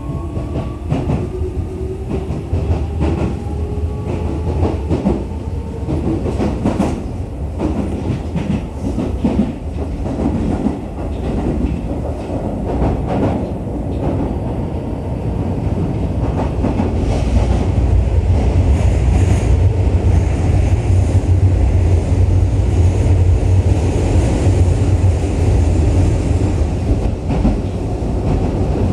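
Keio 9000 series electric commuter train heard from inside the car: the traction motors whine, several tones rising in pitch together as it accelerates over the first few seconds. Then the wheels clack over rail joints, and a steady low rumble grows as the train runs at speed.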